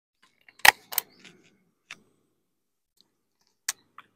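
Sharp clicks and knocks of camp cooking gear being handled. A loud knock with a short clatter comes just under a second in, then scattered single clicks, two of them near the end.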